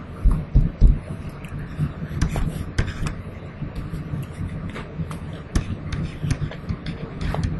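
Steady low room hum with scattered sharp clicks and taps, and two dull thumps about half a second apart near the start, the loudest events.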